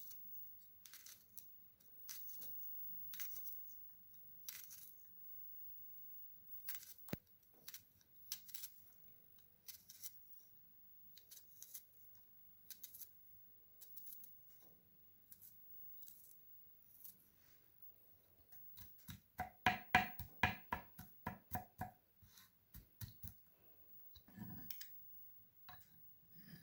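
Short, faint scrapes and clicks of something handled by hand at irregular intervals, with a quick run of strokes, about five a second, about three quarters of the way through.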